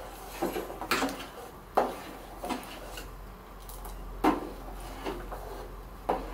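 Metal ladle stirring flattened rice cooking in water in a stainless steel pot, knocking and scraping against the pot's sides in short, irregular strokes, about half a dozen times.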